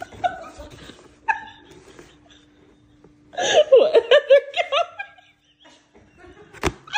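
A person laughing, a run of short laughs about three seconds in, with a single sharp knock near the end.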